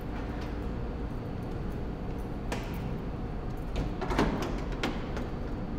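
A hard plastic camp-stove carry case is handled and set down on a pickup's tailgate: a single knock about halfway through, then a short cluster of knocks and clatter, over a steady low hum of parking-garage room noise.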